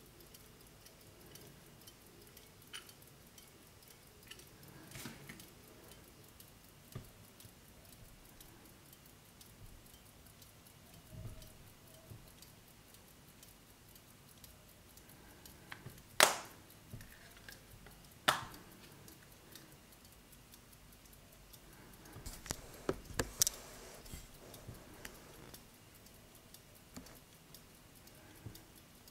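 Antique pocket watch with a modified cylinder escapement ticking faintly, two beats a second. Sharp handling clicks from the watch case stand out: two loud ones about halfway through, and a quick cluster a few seconds later.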